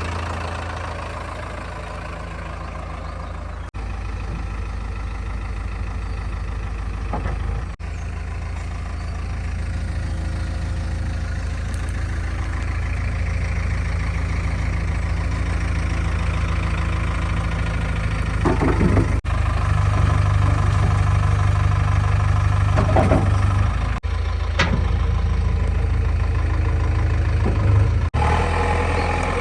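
Diesel engines of a backhoe loader and a tractor running steadily at low revs, with a few short knocks and clatters.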